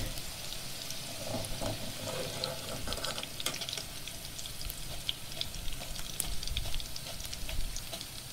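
Potato cubes deep-frying in hot oil in a kadai, a steady sizzle with scattered pops and crackles, now fried crisp. A wire-mesh skimmer scrapes lightly in the pan as the pieces are scooped out.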